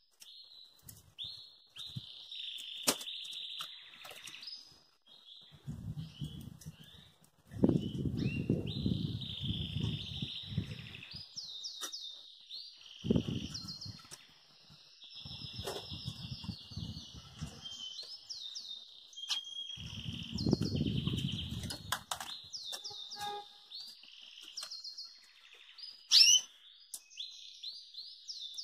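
Caged pintagol, a canary and hooded siskin hybrid finch, singing a run of quick trills and chirps, with several low bursts of wing flapping. A sharp, loud note comes near the end.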